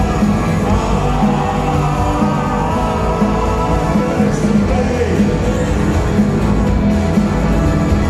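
Live rock band playing loud: drums, bass, electric guitar and keyboard, with a man singing over them.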